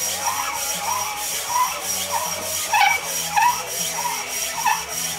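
Metal bearing block being rubbed back and forth by hand on abrasive paper over a flat granite stone, in rhythmic scraping strokes about three a second. This is paper lapping, knocking the high spots off the block's faces to make them true and flat.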